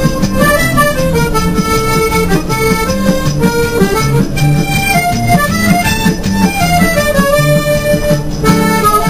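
Accordion music: a melody stepping up and down over a steady, rhythmic bass-and-chord accompaniment.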